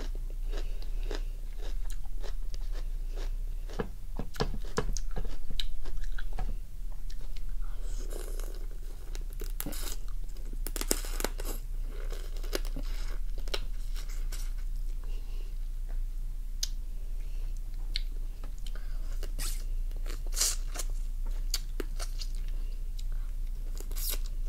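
Close-up eating sounds: a person biting into raw lime-marinated crab and chewing, in an irregular string of sharp crunches and clicks as the softish shell gives way.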